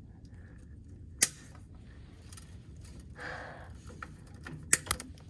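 Zip-tie tails being snipped off with cutters: three sharp snaps, one about a second in and two in quick succession near the end, with a brief rustle of cable handling between them.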